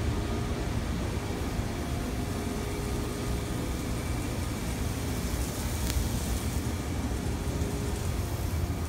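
Steady mechanical hum of commercial kitchen exhaust hood fans, with a single faint click about six seconds in.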